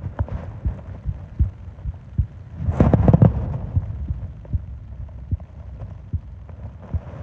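A person's heartbeat picked up close to the microphone: soft low thumps in a steady rhythm. A breath swells over it about three seconds in.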